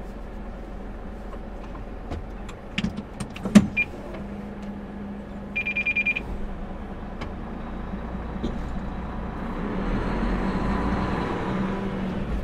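A large diesel truck idling, with a few sharp clicks and a knock from the controls in the cab, then a quick run of about six high electronic beeps. From about nine seconds in, the engine note rises as the truck pulls away.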